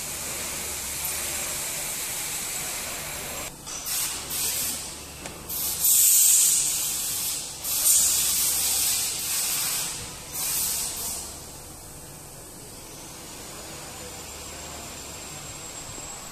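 Plastic stretch film over a machine's control panel crinkling and rustling in irregular bursts, about three to eleven seconds in, as a hand presses buttons through it. Under it runs a steady low hum and hiss.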